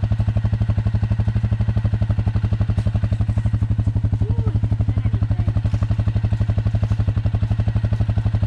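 ATV engine idling, a steady, even, rapid pulse of firings that does not change.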